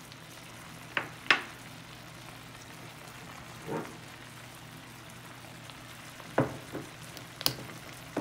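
Chicken livers and gizzards sizzling in sauce in a stainless steel pot: a steady hiss broken by a few short, sharp clicks.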